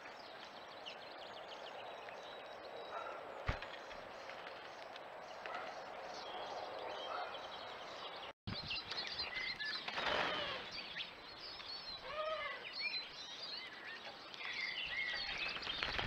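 Small finches chirping and twittering at a seed feeder, short high calls scattered throughout over a steady outdoor hiss.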